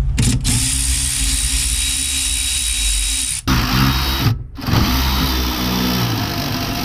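Cordless power tool running on the car's suspension bolts, undoing them to remove the strut. It runs steadily, stops briefly twice about halfway through, then runs again.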